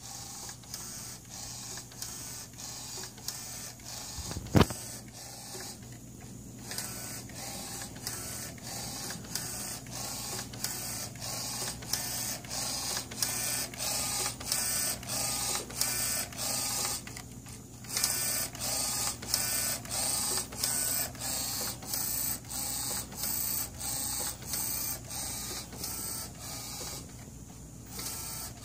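Wide-format inkjet printer printing a screen-print film positive: the print-head carriage shuttles back and forth about twice a second over a low steady hum, stopping briefly three times. A single sharp knock about four and a half seconds in.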